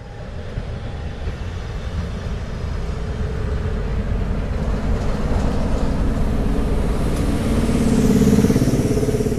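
Class 37 diesel locomotive (37418) moving a train past the platform with a steady rumble of wheels and engine. The English Electric V12's tone grows louder about eight seconds in as the locomotive draws level.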